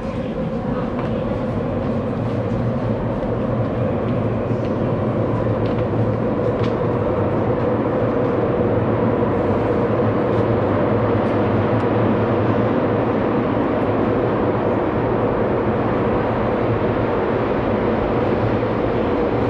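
Minatomirai Line subway train running through its underground tunnel, heard from inside the carriage: a steady rumble with a constant hum.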